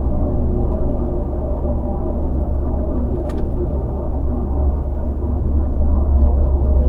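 Land Rover Freelander on the move: steady low engine and road rumble, with a single brief click about three seconds in.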